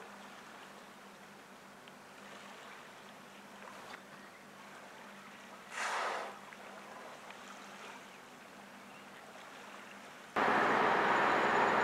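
A minke whale surfacing close to shore exhales once about six seconds in, a short breathy whoosh of its blow, over a faint hiss of calm water. About ten seconds in the sound cuts suddenly to a loud steady rushing noise.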